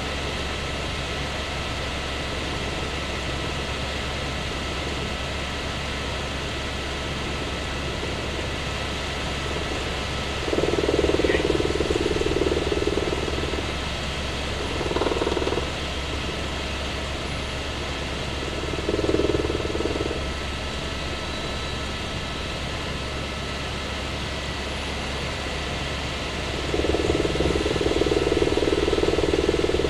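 Helicopter cabin noise in flight: a steady rush and low rotor drone. A louder, muffled mid-pitched hum swells in and out a few times, about ten seconds in and again near the end.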